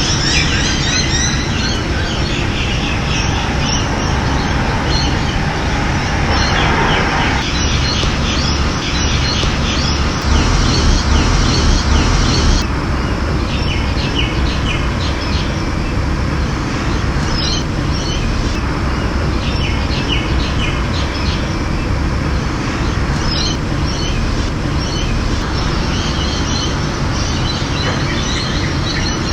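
Steady rushing of running water with wild birds chirping and calling over it throughout. The rush swells louder for a couple of seconds about ten seconds in.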